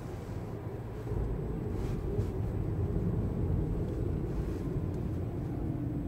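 Steady low rumble of vehicle traffic noise, with no distinct events standing out.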